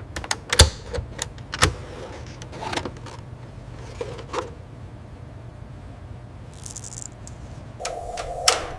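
Factory machinery: a string of sharp mechanical clicks and metallic knocks over a steady low hum, with a brief hiss past the middle and a buzzing machine sound starting near the end.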